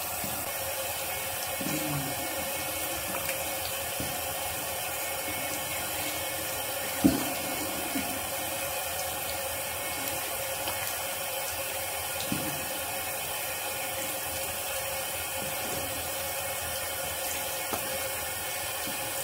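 Tap water running steadily into a bathroom sink while a face scrub is rinsed off by hand, with a sharp knock about seven seconds in and a smaller one later.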